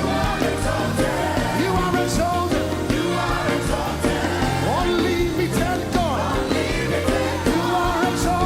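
Live gospel worship music: a band with steady bass and a sung melody line.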